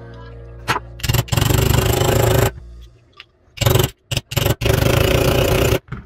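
Hand-held power tool run in loud whirring bursts at a fan motor's rotor just fitted with new bearings: one long burst, a few short ones, then another long burst that cuts off just before the end.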